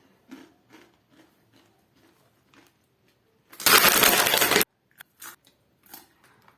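Faint crunching of Takis rolled tortilla chips being chewed, with one loud burst of noise lasting about a second midway through.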